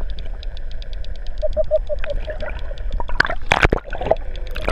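Underwater sound picked up by a handheld camera dipped below the sea surface: a steady low rumble with faint, evenly spaced ticking, and a burst of splashing about three and a half seconds in as waves wash over the camera.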